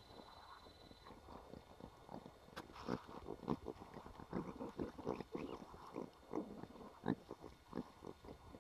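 Red-fronted brown lemurs feeding close by on dry leaf litter: irregular short crackles and clicks, a few a second, starting about two and a half seconds in.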